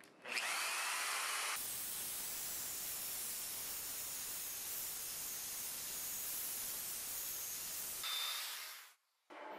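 Ryobi PE1600 900-watt single-action rotary polisher running at its top speed setting, driving a 150 mm sponge buff with extra-fine compound over car paint. It makes a steady, even whir without a clear pitch, starting just after the beginning and fading out near the end.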